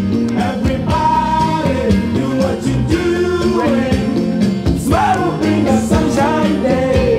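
A song with a singing voice over a full band with a steady drum beat.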